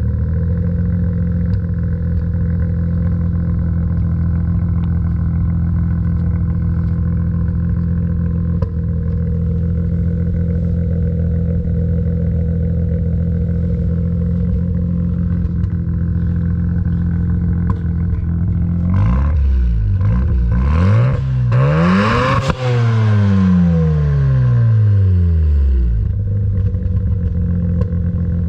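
Mazda RX-7 FD's twin-turbo 13B rotary engine running at a steady speed. About nineteen seconds in, its pitch swings up and down several times, then falls away over a few seconds.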